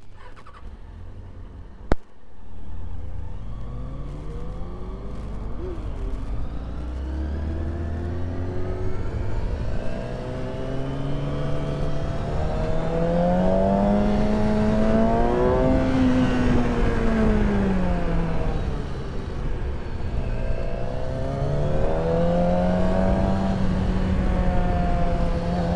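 Motorcycle engine heard from on board, pulling away and revving up: the pitch climbs steadily, eases off about two-thirds of the way through, then rises again and holds. A single sharp knock comes about two seconds in.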